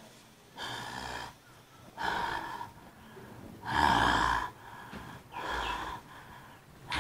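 A man breathing heavily in four gasping breaths, about a second and a half apart, the third the loudest.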